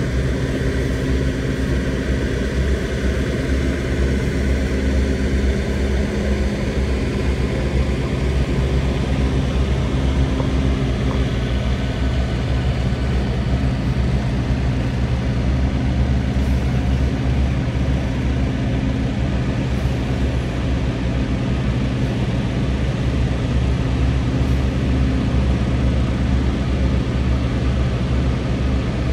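Vehicle engines running at a steady low drone, with no revving or change in pitch.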